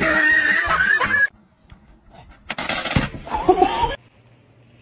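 Two short bursts of people's voices and laughter, the first right at the start and the second about halfway through.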